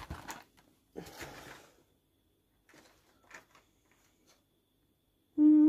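A cardboard toy box being handled and shifted, with soft rustles and a few light taps, then a short steady hum of a woman's voice near the end.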